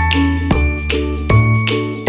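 Background music: a chiming, bell-like melody over sustained bass notes, with a new note struck about every half second.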